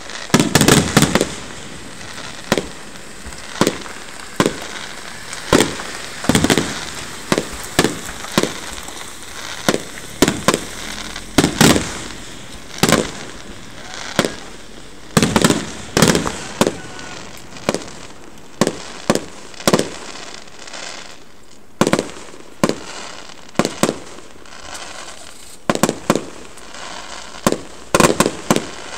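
Aerial fireworks bursting overhead in an irregular string of sharp bangs, roughly one a second with some coming in quick pairs, with crackling between them, picked up by a mobile phone's microphone.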